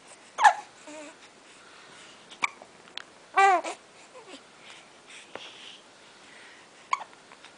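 Infant cooing: a few short, separate vocal sounds, the longest and most tuneful about three and a half seconds in, and a brief sharp one near the end.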